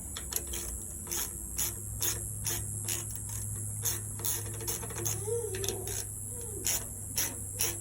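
Ratcheting T20 Torx driver clicking in an irregular run of ticks as screws are backed out of a seatbelt retractor cover, over a steady low hum.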